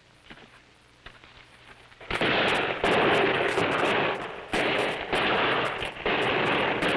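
About two seconds of near-quiet with a few faint ticks, then heavy gunfire sets in suddenly: rifles and automatic weapons firing so fast that the shots run together into a dense rattle, broken by two short pauses.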